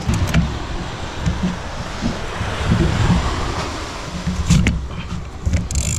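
Surf washing on the beach under a steady hiss, with wind buffeting the microphone in irregular low rumbles. A sharp click comes just after the start and another about three quarters through.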